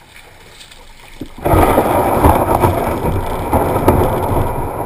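Kayak hull grinding and scraping over a shell-and-gravel beach as it runs aground. It starts suddenly about a second and a half in and stays loud and rough.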